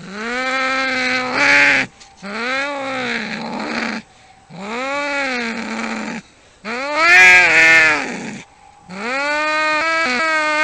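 Cats yowling in a fight standoff: five long, drawn-out wails, each rising and then falling in pitch, with short pauses between them. The one about seven seconds in is the loudest.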